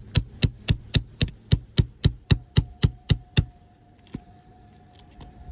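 Roofing hammer striking a nail puller in quick, even blows, about four a second, to work it under a roofing nail in an asphalt shingle. The blows stop a little over three seconds in, and one more knock follows about a second later.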